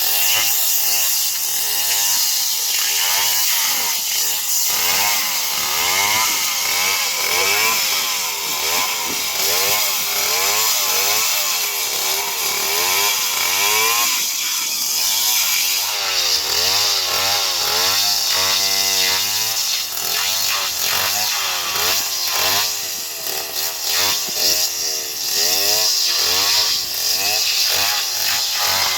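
Stihl chainsaw running hard and cutting through a palm trunk, its engine pitch swinging up and down over and over as the chain bites into the wood.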